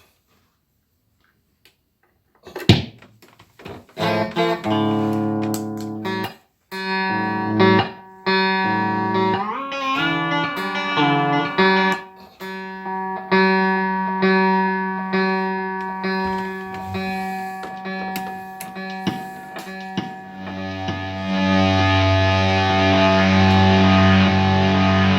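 Electric guitar played through a Sola Sound fuzz pedal built on the Tone Bender Mk IV circuit. After a short silence and a sharp click, it plays single notes and a bent note, building into thick fuzzed chords from about twenty seconds in.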